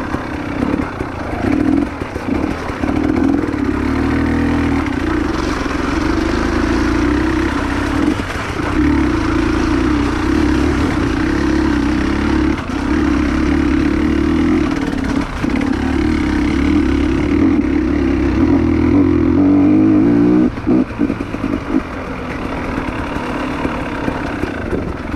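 Dirt-bike engine running steadily under throttle, its note sliding down about twenty seconds in, dipping briefly, then picking up again.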